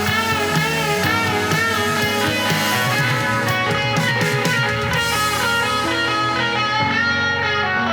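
Rock music with guitar, an instrumental passage with sustained, wavering tones.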